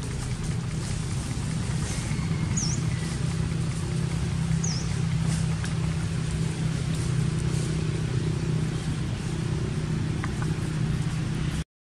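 Steady low motor hum, like an engine running nearby, with two short high chirps about two and a half and four and a half seconds in; the sound cuts out briefly near the end.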